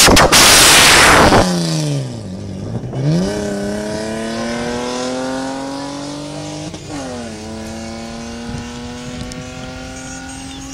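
Drag-racing cars launching off the start line very loud at first, then an engine accelerating hard away down the straight, its pitch dropping and climbing again twice as it shifts up through the gears while it slowly fades with distance.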